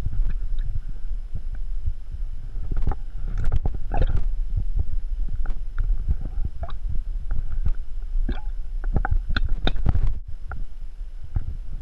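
Water sloshing and gurgling in a water bottle carried in a rucksack, with irregular knocks and rustles as the climber moves, over a steady low rumble.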